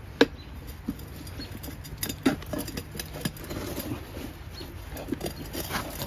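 Irregular light clicks and knocks of hand tools prying a kid's ATV tire bead over its rim, with sharper knocks just after the start and about two seconds in.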